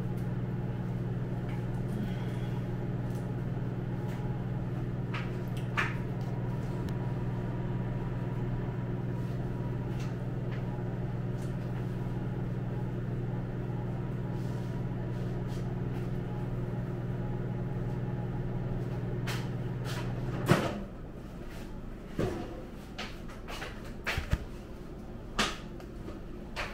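Microwave oven running with a steady low hum, which cuts off abruptly with a clunk about 20 seconds in. A few sharp clicks and knocks follow.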